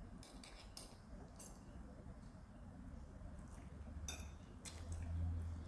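Metal fork and spoon clinking and scraping on a ceramic plate while eating, a few faint clinks with a couple of sharper ones about four seconds in. A low closed-mouth hum swells near the end.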